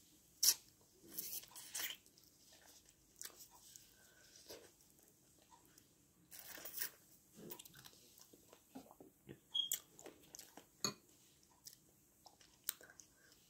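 Chicken feet being eaten by hand: irregular crunching and chewing on the small bones and cartilage, with scattered sharp clicks, the loudest about half a second in.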